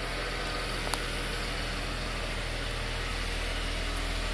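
A 2014 GMC Terrain's 3.6-litre V6 idling steadily, with a single light click about a second in.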